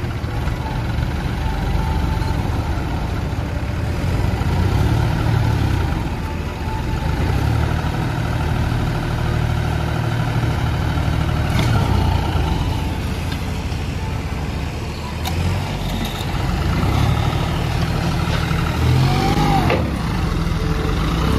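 Diesel engines of two John Deere tractors running under load while the larger one tows the smaller 5105 out of soft ground. The engine note rises and falls as they are revved, with revs swinging up and down near the end.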